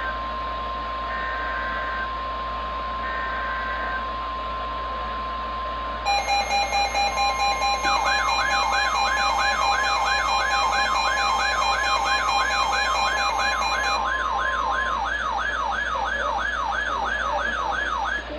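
Emergency Alert System alert tones. A steady tone of about 1 kHz, like the NOAA weather radio warning tone, sounds for the first six seconds. Then a rapid pulsing beep and a steady lower tone join in, and a warbling siren-like tone rising and falling about two and a half times a second runs until it cuts off at the end.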